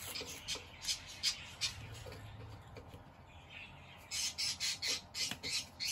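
Small clear plastic bag crinkling in short crackles as it is handled and opened, with a quicker run of about four crackles a second near the end.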